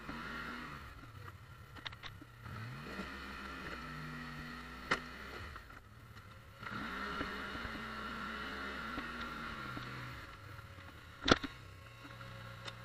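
Polaris Sportsman 850 ATV's parallel-twin engine running at low revs under load while it pushes snow with a plow, its pitch rising and falling as the throttle changes. A few sharp knocks come through; the loudest is near the end.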